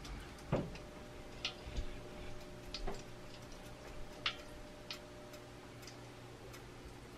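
Faint, irregular ticks and small clicks, roughly one a second, over a low steady hum.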